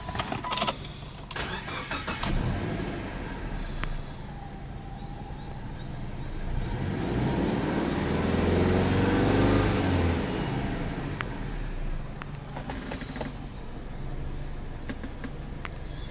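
Subaru Legacy Touring Wagon 2.0 Blitzen 2005's EJ20 flat-four boxer engine starting and settling to idle. About seven seconds in it is blipped once, the pitch rising and falling back to idle over about four seconds, and this is the loudest part.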